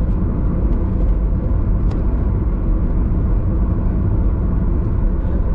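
Steady low rumble of a car's engine and tyres on the road, heard from inside the cabin while driving at highway speed.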